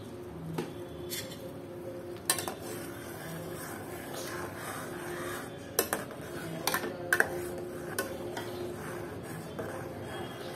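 A metal spoon stirs oats in an aluminium saucepan, clinking sharply against the pot several times, most often around the middle.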